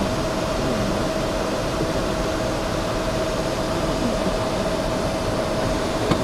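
Steady rush of air with a constant whine in an airliner's cockpit, from the ventilation and air-conditioning system running.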